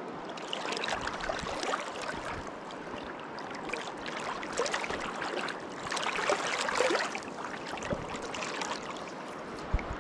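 River water rushing and splashing, with irregular swells of splashing; a low thump near the end.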